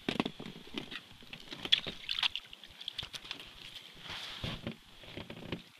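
Rustling of winter clothing with scattered clicks and knocks as an ice angler handles his rod, line and catch over the ice hole; one sharper knock stands out about two seconds in.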